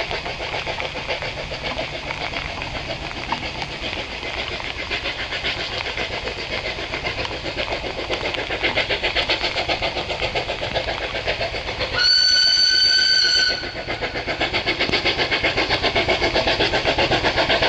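Small steam locomotive working towards the listener, its rhythmic exhaust chuffs growing louder as it approaches. About twelve seconds in it sounds its steam whistle once, a shrill blast of about a second and a half.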